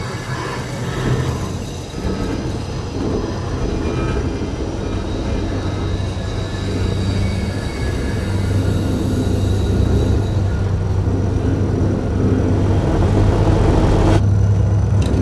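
Double bass bowed with extended technique: a low, noisy drone that grows gradually louder. Near the end the higher hiss cuts out suddenly, leaving only the low drone.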